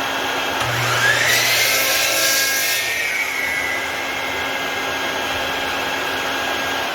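A bucket-top shop vacuum runs steadily while an electric miter saw motor spins up about half a second in, its whine rising and then holding. A louder, hissier stretch from about one to three seconds in is the blade cutting through wood, with the vacuum pulling the sawdust away.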